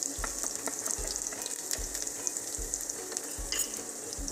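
Garlic cloves sizzling and crackling in hot oil in a steel kadhai, with a wooden spatula stirring them at first.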